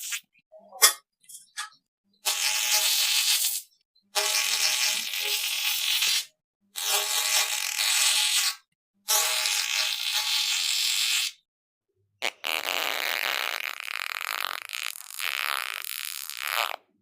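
A few short pops, then a string of five drawn-out fart sounds, each a buzzy, spluttering blast of a second and a half to four and a half seconds. Each starts and cuts off abruptly with silence in between, and the last is the longest.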